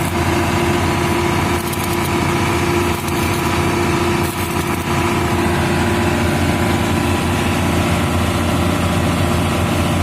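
Excavator diesel engines running steadily, kept on to power an electric welder from their 24-volt batteries.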